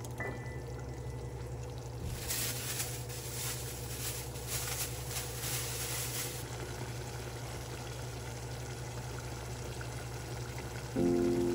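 A pot of ground-beef tomato ragout simmering while a silicone spatula stirs it, with a few seconds of wet stirring strokes in the middle. Piano music comes in near the end.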